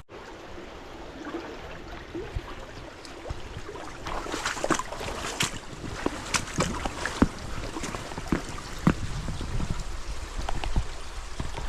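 River water running and trickling, with many short splashes and knocks from about four seconds in, and wind on the microphone.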